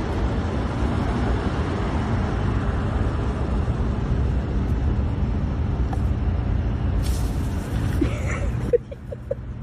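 Steady, loud rumbling noise that drops away to quieter sound near the end.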